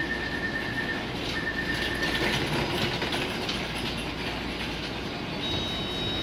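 Taipei Metro 381-type train's door-closing warning tone, a high beep repeating in pulses about a second long, which stops a little over two seconds in, over the steady hum of the train standing with its doors open. Near the end a high steady whine starts as the doors begin to close.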